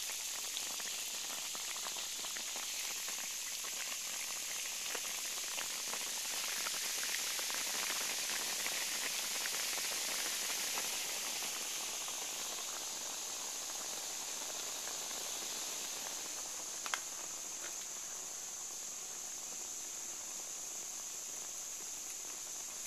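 Cut-up aluminum hard-drive platters fizzing vigorously in acid in a glass bowl: a steady crackling hiss of bubbles as the aluminum dissolves. The fizzing swells a little partway through, and there is one sharp click later on.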